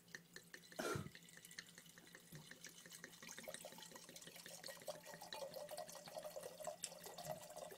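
Red wine poured from a bottle into a large wine glass: a faint, steady liquid pour with small glugs and splashes, and one louder knock about a second in.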